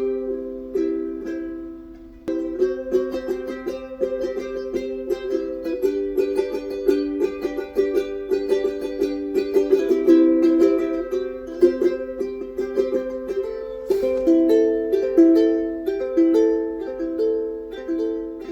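Ukulele playing: strummed chords, changing about two-thirds of the way through to a repeating picked pattern of single notes.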